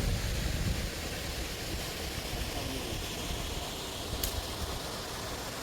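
Steady outdoor background noise, an even hiss, with a low rumble that eases off in the first second and a single sharp click about four seconds in.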